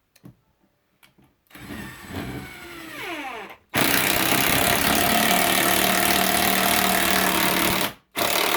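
Bauer 1/2-inch impact wrench driving a lag bolt: a softer spin with falling pitch, then loud steady hammering for about four seconds, a brief stop, and hammering again near the end.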